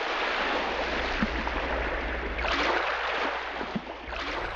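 Sea water rushing and washing, swelling louder twice, over a low steady rumble.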